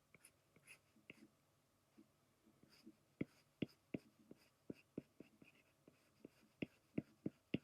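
Pencil on paper: faint scratching of light sketching strokes, then a string of short, sharp ticks as quick strokes are laid down, more of them in the second half.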